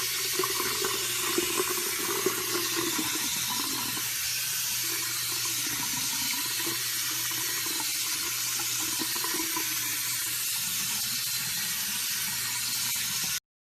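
Steady rushing of running water, with a faint low hum underneath. It cuts off suddenly near the end.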